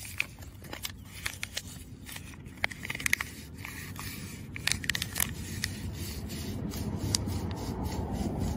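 Green abrasive sheet scraped and rubbed over the metal electrode pads of a Kelway soil pH meter's probe tip, cleaning and polishing them before a reading. Scattered sharp clicks give way to a steadier rubbing that grows louder after the midpoint.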